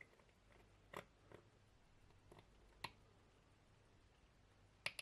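Small metal tool clicking against a vintage watch movement as it is taken apart: about five faint, sharp ticks over near silence, the loudest near the end.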